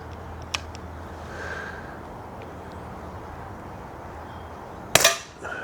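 Snowpeak PP20 .177 pre-charged pneumatic air pistol firing a single shot about five seconds in, a sharp crack, with a faint click about half a second in.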